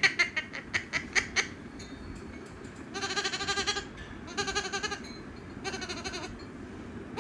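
Pet parrot calling: a quick run of short sharp chirps in the first second and a half, then three short bursts of rapid, stuttering calls.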